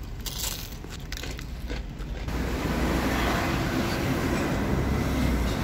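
Plastic takeout bag crinkling for about two seconds, then a steady low rumble and hiss of outdoor street noise.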